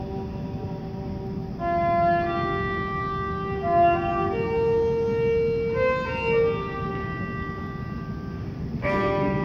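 Solo violin playing a slow, plain melody note by note, after a held tone at the start. Near the end a fuller sustained chord comes in as the choir re-enters.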